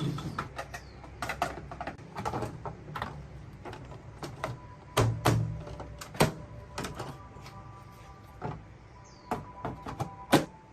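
Irregular sharp clicks, taps and knocks of tools and parts being handled during work on a washing machine, with a couple of heavier thuds about halfway through.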